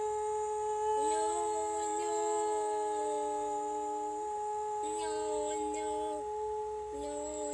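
A woman singing long held notes in three phrases, starting about a second in, over a steady sustained drone tone.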